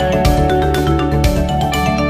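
Dance music with a steady beat, about two beats a second, over held melodic notes.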